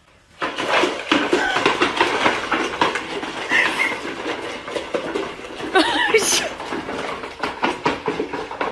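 Several puppies scrambling at plastic food bowls on a tiled floor: a busy run of clicks and clatter from claws, bowls and kibble.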